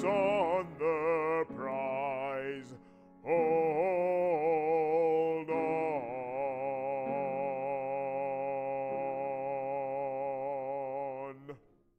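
A man's baritone voice singing with a wide vibrato: a few short phrases, then one long held note of about eight seconds over a steady accompaniment, cut off sharply near the end.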